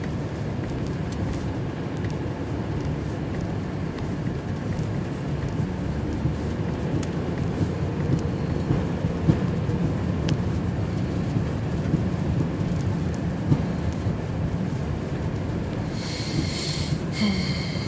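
Steady road and wind noise heard inside a car driving on an icy, snow-blown highway in a blizzard, a low rumble with scattered light ticks. Near the end, two short high-pitched tones sound one after the other.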